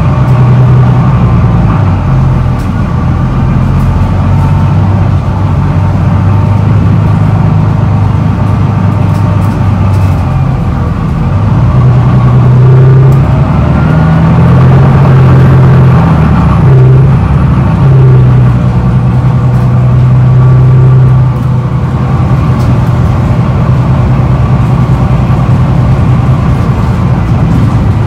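Double-decker bus engine heard inside the upper-deck cabin: a loud, steady low drone that swells and shifts in pitch for several seconds midway through.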